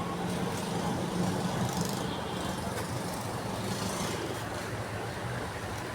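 Steady low hum of road traffic, with plastic packing film rustling a few times.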